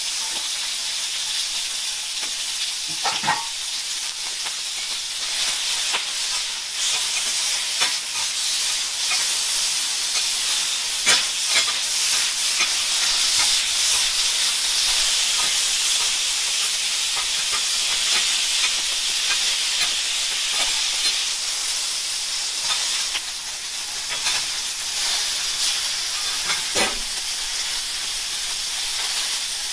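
Sliced pork belly sizzling steadily on a hot iron teppan griddle. Metal spatulas clack and scrape on the plate now and then as the pork is turned and pushed together.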